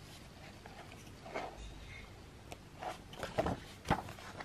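Pages of a photobook being turned by hand: a few short paper rustles and flaps, the loudest just before the end.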